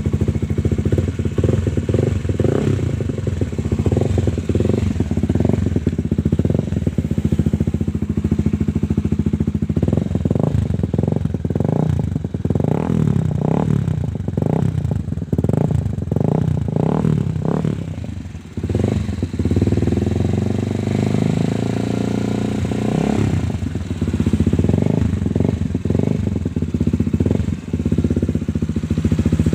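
Honda CBR150R's single-cylinder four-stroke engine through an aftermarket PDK slip-on exhaust, idling and revved in repeated short throttle blips. The blips come quick and close together in the middle, then the engine runs steadier for a few seconds before more blips.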